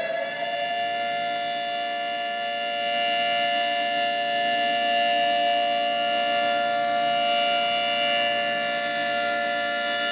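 Federal Signal 3T22 three-tone tornado siren finishing its wind-up in the first half second, then holding a steady chord at full pitch, growing louder about three seconds in.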